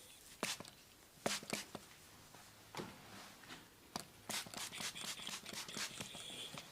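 Hands slapping and tapping on skin during a massage: sharp single slaps spaced out at first, then a quick run of them about four seconds in.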